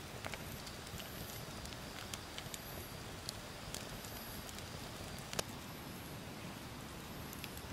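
Wood campfire crackling softly, with scattered sharp pops and one louder pop about five seconds in.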